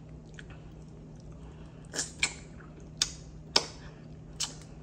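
Close-up mouth sounds of biting and gnawing kernels off a corn cob: a few sharp, wet clicks and crunches, five of them in the second half, starting about two seconds in.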